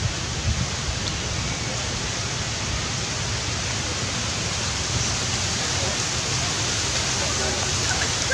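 Steady, even rushing hiss with a fluttering low rumble underneath.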